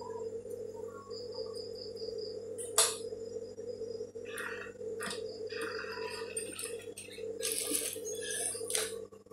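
Fabric being handled and positioned on the metal needle plate of an industrial single-needle sewing machine: soft rustles and a few sharp clicks, the sharpest about three seconds in, over a steady low hum. A cricket chirps in the background.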